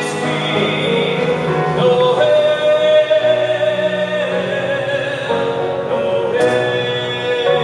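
Children's choir singing a Christmas carol in long held notes that change every second or two.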